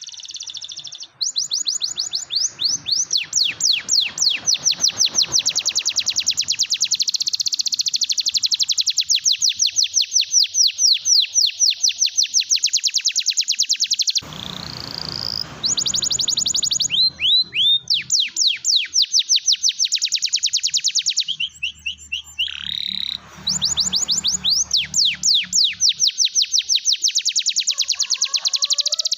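Domestic canary singing vigorously in long, fast trills of rapidly repeated high, down-sweeping notes, broken by short pauses and changes of phrase. Two brief low noises, one about halfway through and one about three-quarters through, sit under the song.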